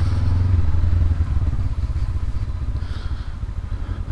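2019 Honda CB500X's parallel-twin engine running while the bike rides along, a steady low engine pulse that is a little stronger for the first second or so and then eases off.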